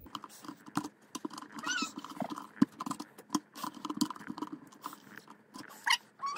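Plastic creaking, clicking and scraping as the inner part of a chicken nipple-drinker fitting is screwed by hand through the wall of a plastic bucket, with a few short squeaks.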